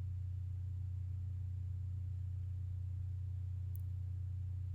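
Steady low electrical hum, with one faint click a little under four seconds in.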